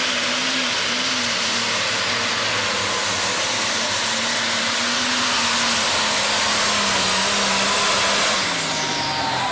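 Modified International pulling tractor's engine running flat out under load as it drags the weight-transfer sled, loud and steady with its pitch sagging slightly. Near the end it drops off abruptly and the engine winds down as the throttle is cut.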